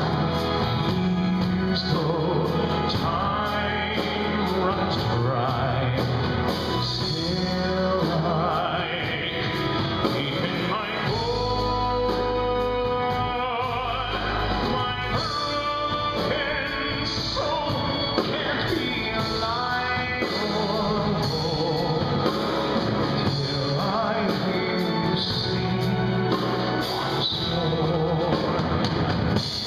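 A man singing a musical-theatre ballad live through a microphone, with band accompaniment.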